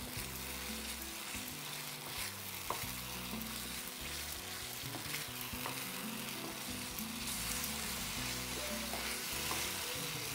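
Thick onion-and-curd masala gravy sizzling in a non-stick frying pan as a wooden spatula stirs it, with a steady hiss and a few light clicks of the spatula against the pan.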